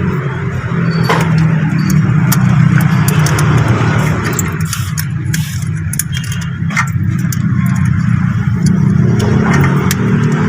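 Steady low hum with scattered sharp metal clicks and clinks of wrench work on a car starter motor's mounting nuts.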